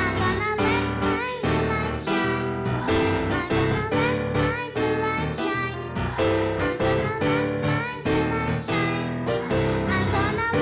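A piano plays a song in a steady run of notes, with children's voices singing along.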